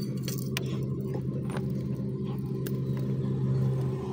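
A steady, low engine hum from a running vehicle, with a few light, sharp clicks of loose stones.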